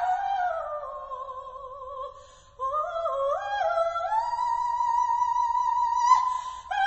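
A female soprano sings an unaccompanied operatic cadenza: a line sliding down and fading, a brief pause, then climbing in steps to a long held high note.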